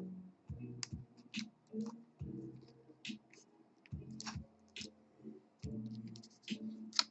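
Scattered short clicks and ticks of small metal tools and lock parts being handled as a lock is taken apart, over quiet background guitar music.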